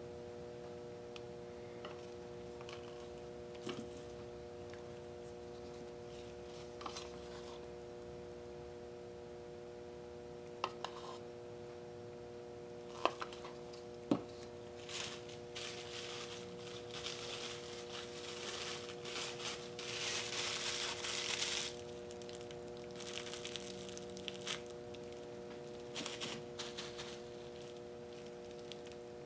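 Plastic bubble wrap crinkling and crackling as it is pressed into and lifted from wet acrylic paint. It starts with a few sharp clicks, then gives longer stretches of crinkling in the second half, over a steady hum.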